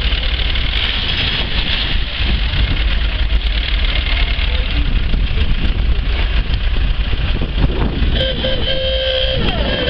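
Steady outdoor ambience of a busy car meet: a dense rumble and hiss of vehicles and crowd, with a strong low rumble on the microphone. About eight seconds in, a held horn-like tone sounds.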